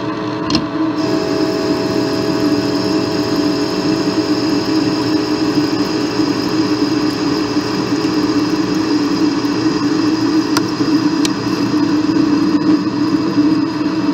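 Metal lathe running at about 800 RPM while its insert tool takes a turning cut in aluminium at 14 thousandths feed per revolution: a loud, steady machine hum whose tone shifts about a second in, with a few faint ticks.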